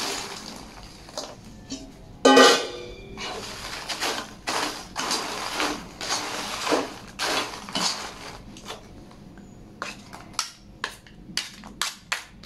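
Dry Marie biscuit pieces tipped into a wok and stirred through warm chocolate mixture with a ladle: scraping and clattering strokes, with a loud knock about two seconds in and quicker, sharper clicks near the end.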